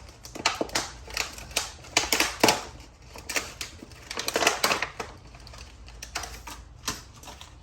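Irregular clicking and rattling of small hard pieces being handled, tools and plastic steering-wheel parts knocking together, in quick clusters with the loudest clatter near the middle.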